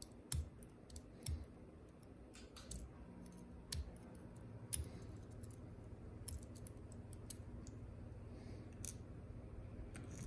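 Irregular sharp metallic clicks and taps of a brass pin-tumbler lock cylinder and a small metal tool being handled as the lock is taken apart. A low steady hum sets in about three seconds in and grows louder toward the end.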